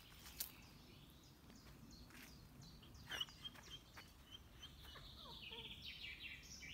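Faint birdsong: several small birds chirping, with a quick trill of repeated notes near the end, over a soft outdoor hiss. A couple of sharp clicks stand out about half a second and three seconds in.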